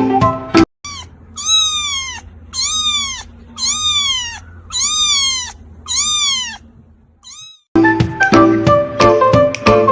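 A cat meowing five times in a row, about one call a second, each call rising then falling in pitch, in a run that sounds like laughing. Instrumental music cuts off just before the meows and comes back near the end.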